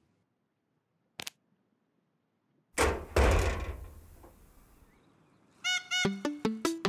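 Cartoon sound effect of a big door opening: a rushing whoosh with a low rumble, fading away over a second and a half. Before it there is one short click, and near the end a bouncy run of short plucked musical notes begins.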